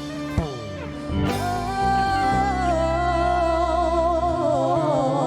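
Live gospel worship music with guitar and drums. About a second in, a singer starts a long, wavering held note over a sustained chord.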